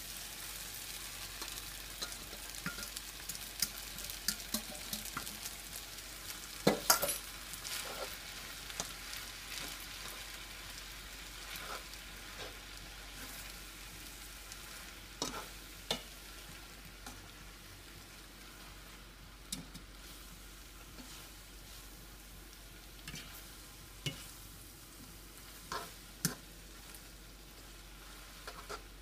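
Noodles and vegetables sizzling in a nonstick skillet while being tossed with a plastic spoon, with occasional clacks of the spoon against the pan. The loudest clack comes about seven seconds in, and the sizzle slowly dies down.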